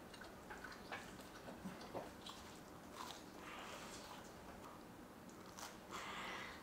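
Faint biting and chewing on a slice of pizza, with scattered soft crunches and clicks from the crust.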